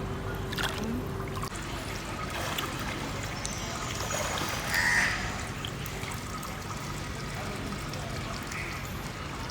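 A single bird call about five seconds in, over gently trickling water and a steady low hum.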